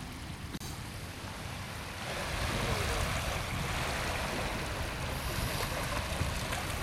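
Small waves breaking and washing over the sand in the shallows, with wind rumbling on the microphone; the surf grows louder about two seconds in.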